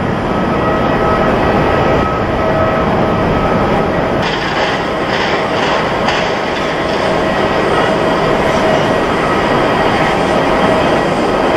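Jet airliner engines on landing approach: a loud steady rush of engine noise with a thin whine running through it, the whine shifting lower about halfway through.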